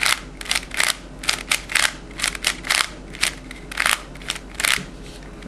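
Plastic layers of a Cube4You 3x3x5 cuboid puzzle clicking as they are turned through a move sequence. There are about a dozen sharp clicks, a few each second, unevenly spaced.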